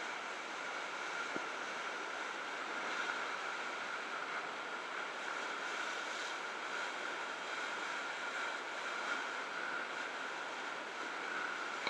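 Steady rush of sea water and wind along the bow of a sailing ship under way.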